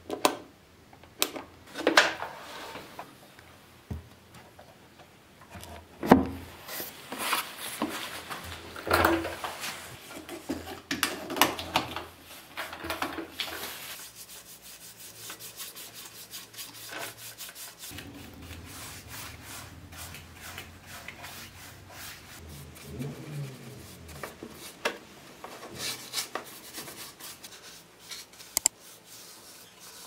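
Hands handling the plastic and plywood parts of a homemade cyclone dust collector: irregular knocks, clicks and scrapes, louder in the first half. In the second half there is quieter, steady rubbing and brushing with scattered ticks.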